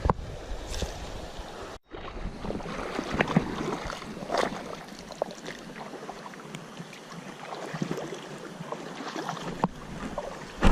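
Shallow river current flowing over rocks, with scattered small splashes and clicks, and a brief break about two seconds in.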